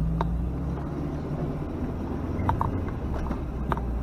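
Off-road vehicle's engine running with a steady low drone, with a few sharp clicks and knocks over it.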